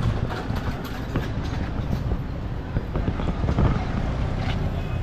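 Street traffic noise: motor vehicles running nearby, with a few short clicks and knocks.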